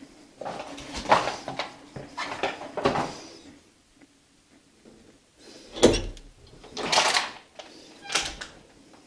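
An interior door's knob rattled and turned and the door worked open, in a series of short clicks and knocks. The loudest is a thud about six seconds in, with two more short noises after it.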